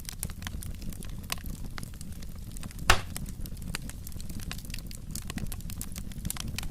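Wood fire in a fireplace crackling, with irregular sharp pops and snaps over a low steady rumble of the flames, and one louder pop about three seconds in.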